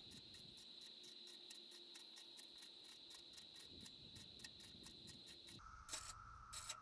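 Faint chorus of periodical cicadas, a steady high drone with a fast, even pulsing over it. About a second before the end the high drone stops and a lower drone takes over.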